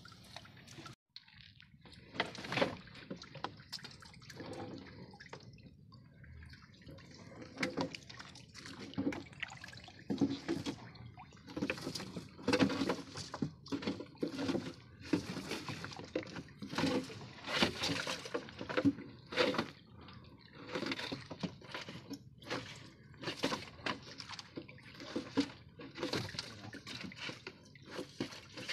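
Seawater splashing and dripping in irregular spurts, several times a second, as a wet mesh fish trap is hauled over the side of the boat and handled.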